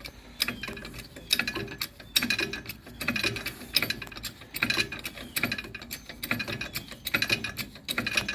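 Irregular light clicks and rattles, several each second, from something being handled.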